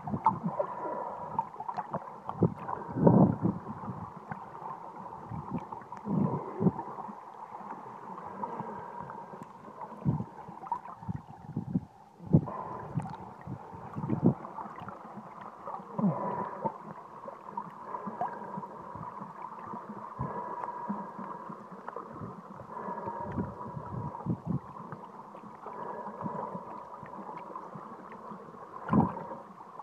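Muffled underwater noise picked up through a waterproof phone case: water gurgling and rushing around the case, with irregular dull thumps as the case is moved and a steady faint hum underneath.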